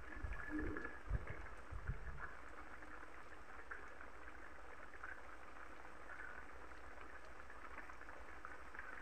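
Beef stew simmering in a wok: faint, steady bubbling, with a few low thumps in the first two seconds.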